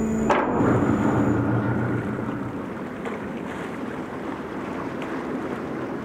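Car ferry under way: a steady rushing noise of wind and water, with a low engine hum that fades out in the first second or two.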